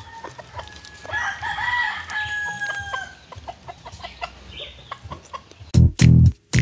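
A rooster crows once, one long call starting about a second in. Loud music begins near the end.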